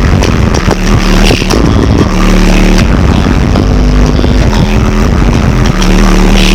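Bass-heavy hip-hop played at extreme volume through a van's car-audio system of many subwoofers, the deep bass notes held in blocks of a second or two and the sound overdriven and distorted.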